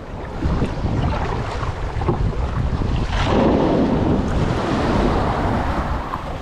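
Wind buffeting the microphone over ocean waves, with a louder surge of water washing in about three seconds in.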